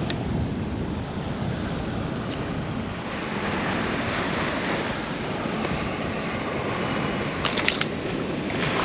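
Surf washing on the beach and wind buffeting the microphone, a steady rushing noise. A quick cluster of sharp clicks about seven and a half seconds in.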